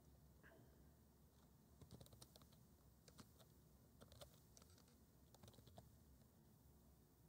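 Faint computer keyboard typing: scattered keystrokes in short clusters.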